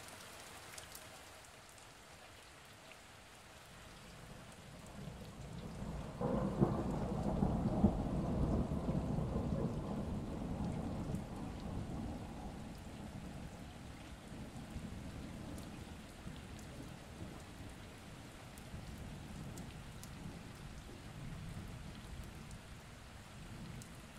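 Steady rain with a roll of thunder that builds about five seconds in, is loudest for several seconds, then fades into the rain again.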